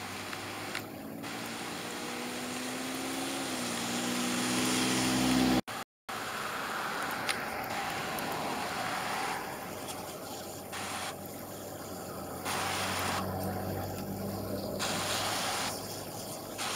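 Steady rush of creek water flowing through an open channel in thin ice. Over the first five seconds an engine hum grows louder and rises slightly in pitch, then the sound cuts out for a moment about six seconds in.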